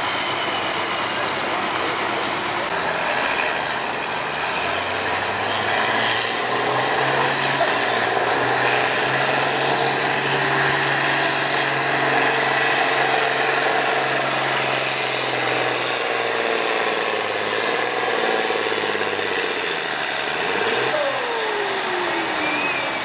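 Farm tractor engine working hard under load as it pulls a weight-transfer sled down a tractor-pull track. The engine note builds about five seconds in, holds, then drops away in pitch near the end.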